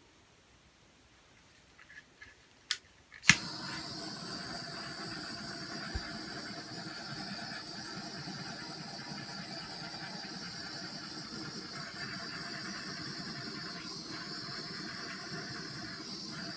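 A few soft clicks in near silence, then a small electric fan motor, likely a heat gun or dryer used on the wet pour, switches on with a click about three seconds in and runs steadily with a high whine.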